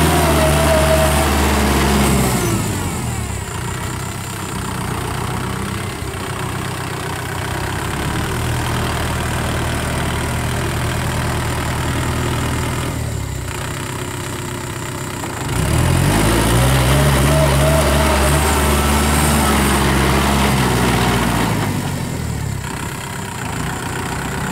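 Kubota tractor's diesel engine running as it pulls a rotary tiller through the soil. It is louder in the first two seconds and again for several seconds past the middle, where its pitch rises and then falls.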